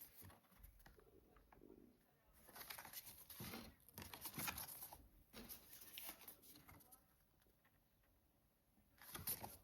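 Near silence with faint rustling and handling noises from paper cards and packaging, heard a few seconds in and again near the end.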